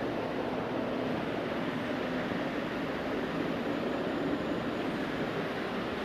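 Desktop computer's cooling fans running with a steady whir while the PC boots.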